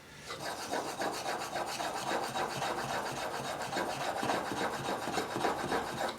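Steel chisel rubbed back and forth on a very fine sharpening stone in quick, even strokes, at the last stage of honing the edge; the rasping stops abruptly near the end.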